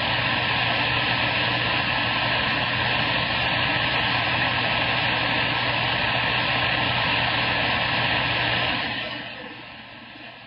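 CB radio speaker hissing with loud static over a steady hum, which cuts down suddenly about nine seconds in to a much quieter background.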